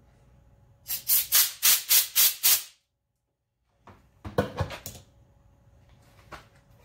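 About seven quick hissing blasts blown through a hose, about four a second, as a clogged line is cleared and now passes freely. A few knocks of parts being handled follow a couple of seconds later.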